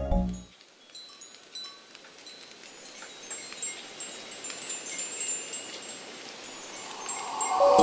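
Wind chimes tinkling in scattered, high, short notes over a soft airy hiss, the strikes growing busier as it goes on. Low sustained music tones swell in near the end.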